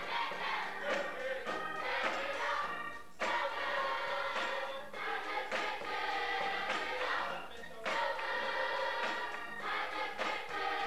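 Children's church choir singing together, backed by a drum kit, the phrases pausing briefly twice.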